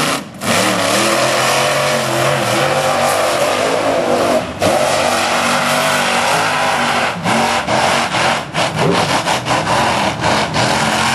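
Lifted monster truck's engine revving hard on a dirt track, the throttle lifted briefly about half a second in and again near the middle, then chopped in quick dips over the last few seconds.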